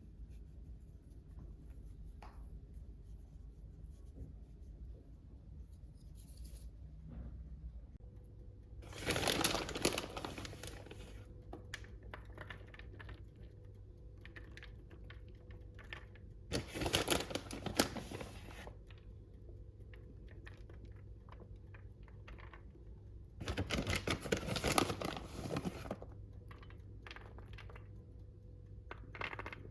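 Three bursts of rustling, crinkling and scraping from hands working with food and its packaging, over a low steady hum.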